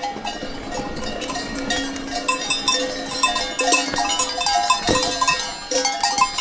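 Several cowbells on grazing cattle clanking irregularly at a number of different pitches.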